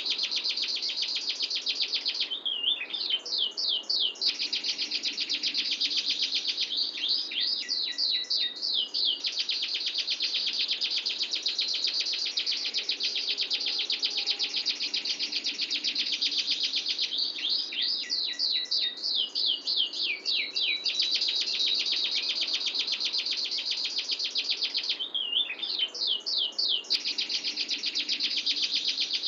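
Domestic canary singing long, fast rolling trills, broken every few seconds by short runs of quick sweeping notes.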